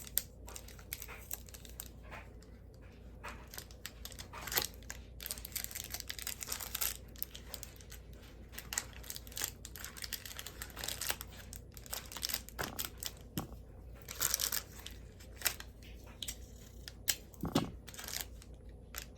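Plastic candy-bar wrappers crinkling and double-sided tape being peeled and pressed down, in irregular rustles and small clicks while the bars are stuck onto a cardboard box.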